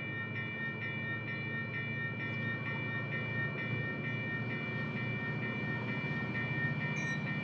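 Union Pacific diesel locomotives approaching under load, their engines running with a low rumble that grows louder toward the end. Over it, a bell rings rapidly and steadily.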